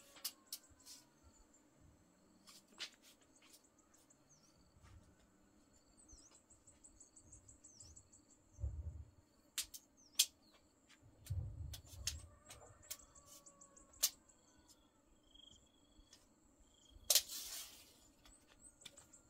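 Steel tape measure being pulled out and handled while a doorway is measured: scattered sharp clicks, a few soft low thuds, and a short loud rasp near the end as the tape snaps back in. Steady high chirping of birds runs underneath.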